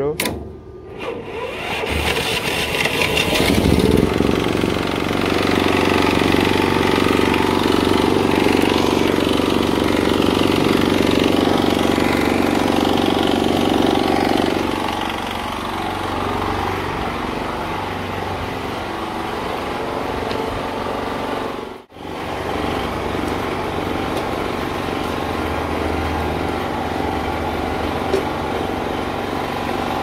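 Small engine of a portable generator powering an electric welder, starting about two seconds in and rising in speed, then running steadily; it settles to a lower, quieter pace about halfway through. The sound cuts out for an instant about two-thirds of the way in.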